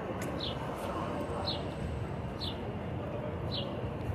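A bird chirping: a short high note that falls in pitch, repeated about once a second, over a steady hum of street traffic and people.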